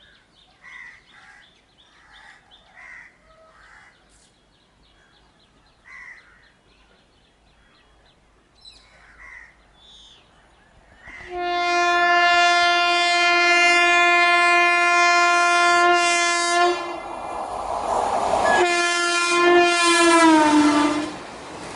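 Faint chirping for about eleven seconds, then the horn of a WAP4 electric locomotive sounds a long steady blast, breaks off briefly under a rush of noise, and sounds again, its pitch falling as the locomotive passes.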